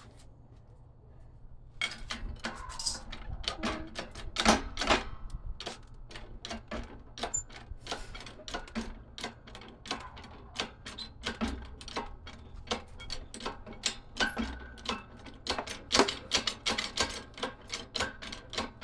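A coffee maker being smashed: after a short quiet start, a long run of sharp, irregular blows and clattering, several a second, with a few much harder hits among them.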